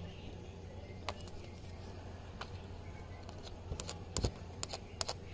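A few faint clicks and light knocks from handling the plastic additive tube at the scooter's oil filler neck, over a low steady hum; the clearest taps come about four seconds in.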